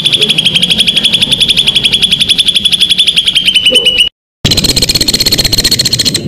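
Songbird giving a tight rapid-fire 'tembakan' trill: sharp notes repeated about fifteen times a second at a steady high pitch. It breaks off briefly about four seconds in, then resumes slightly higher.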